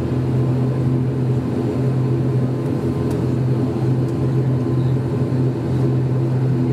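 ATR 72-600 turboprop engine and six-blade propeller running at taxi power, heard from inside the cabin as a steady low drone with a strong hum.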